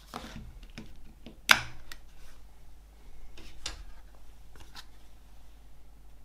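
Hands handling a cardboard digipak CD case with a clear plastic tray: a sharp click about a second and a half in as the disc comes off the tray's centre hub, then a few softer plastic clicks and the rustle of the cardboard panels.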